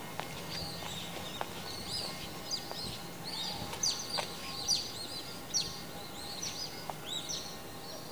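Small birds chirping busily, many short high chirps overlapping one another, over a faint low background hum.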